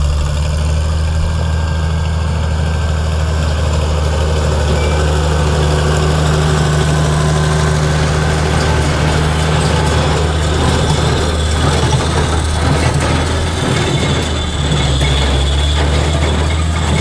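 A tractor engine running steadily at a low, even pitch, with some irregular clatter between about ten and fifteen seconds in.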